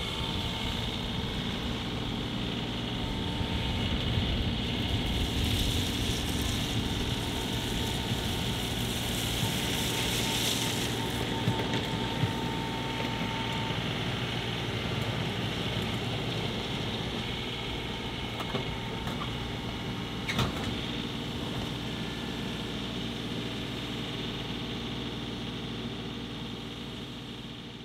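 John Deere 2038R compact tractor's three-cylinder diesel engine running steadily while it works gravel with its front loader, with a single sharp knock about twenty seconds in.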